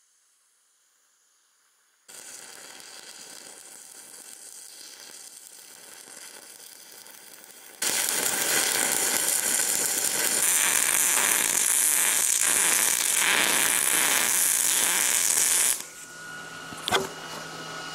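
Stick-welding arc crackling and hissing: a quieter stretch starts about two seconds in, then a much louder, dense crackle runs for about eight seconds and cuts off suddenly. Afterwards a steady low hum remains, with one sharp click near the end.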